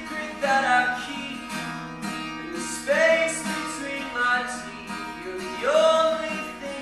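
A man singing while strumming an acoustic guitar, his sung phrases swelling about half a second, three seconds and six seconds in.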